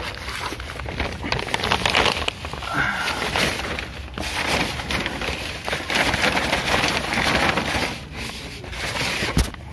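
Dense, irregular rustling and scraping close to the microphone: handling noise from the phone being gripped and moved about, briefly quieter about four and eight seconds in.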